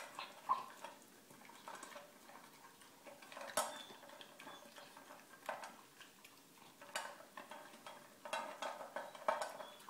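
A puppy eating from a stainless steel bowl: its food and snout clink and scrape against the metal in irregular bursts, with one sharper clank a little over three seconds in.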